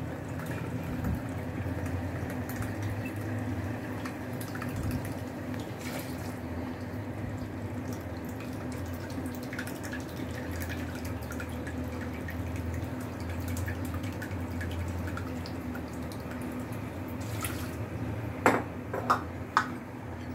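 Water being poured into a pressure cooker of cut potatoes and cauliflower, a steady running-water sound, with a few sharp clinks near the end.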